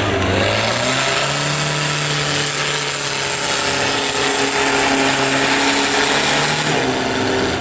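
Off-road 4x4 truck engine revved up about a second in and held hard at high revs, then dropping back shortly before the end.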